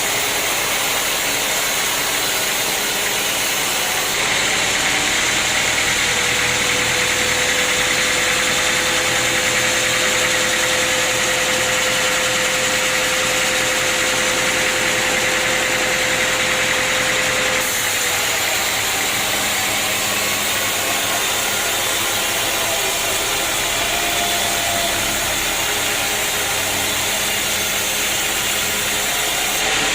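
Sawmill machinery running steadily. A steady whine joins in about six seconds in and stops abruptly near the middle.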